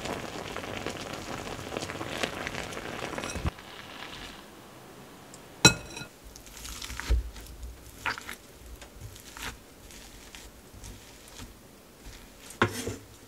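Steady hissing and sizzling from a hot cast-iron pot of just-steamed potatoes, stopping abruptly about three and a half seconds in. Then a single sharp ringing clink, soft scrapes and taps as the potatoes are mashed with a hand masher in a glass bowl, and a louder knock of the masher against the bowl near the end.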